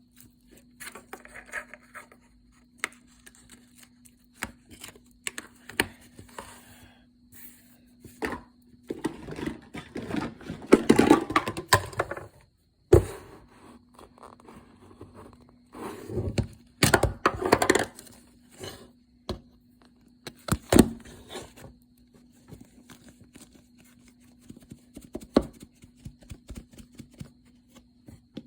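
Slime being squished, stretched and poked by hand, making sticky crackles, pops and wet clicks. It comes in denser, louder spells about a third of the way in and again just past the middle.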